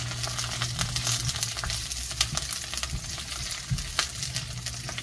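Squid and fish cakes in sauce sizzling and crackling in a nonstick wok while a spatula stirs them, with a few sharper clicks of the spatula against the pan.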